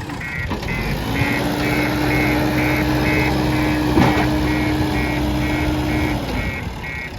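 A vehicle's reversing alarm beeping about twice a second over a running diesel engine. A steady low hum comes in about a second in and stops about six seconds in, and there is a sharp knock about four seconds in.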